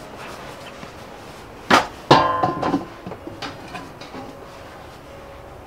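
Stainless steel steamer pot set down on a gas stove: a knock, then a metallic clang that rings briefly, about two seconds in, followed by a few lighter clinks as the pot and lid are handled.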